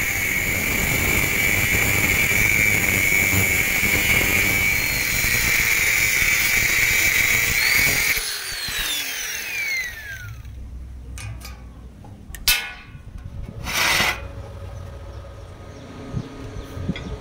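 Angle grinder with an abrasive cut-off disc cutting through a thick-walled steel tube with a steady high whine; about eight seconds in it is switched off and winds down in a falling whine. Two short knocks follow in the quieter stretch, about a second and a half apart.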